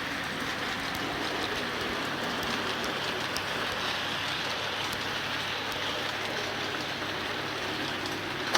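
Steady rushing noise of a freight train's cars rolling past on the rails, with faint scattered ticks and no clear wheel beat.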